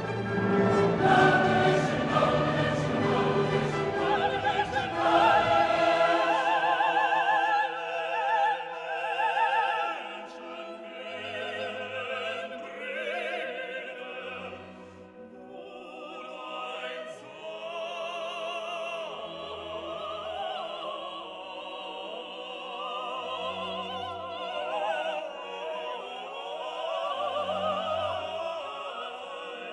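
Background music: classical choral or operatic singing with orchestra, full and loud for the first few seconds, then thinner and quieter.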